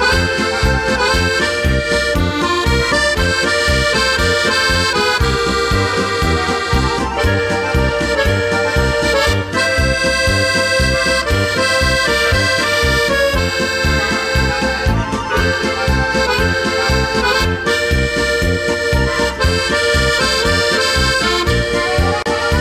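Accordion-led folk music, an instrumental passage with a steady beat and no singing.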